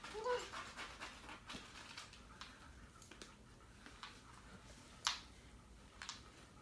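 Faint, scattered small clicks and taps, about half a dozen, with one sharper click about five seconds in.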